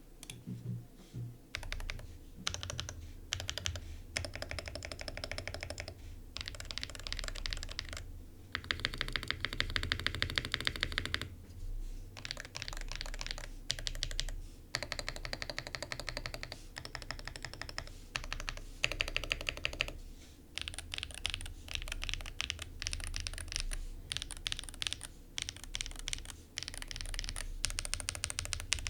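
Typing on a Wooting 60HE-based custom mechanical keyboard with Gateron Magnetic Jade switches, a POM plate, GMK keycaps and a Tofu60 Redux case damped with plate foam and car sound insulation. Rapid keystrokes come in bursts of a few seconds with short pauses between them.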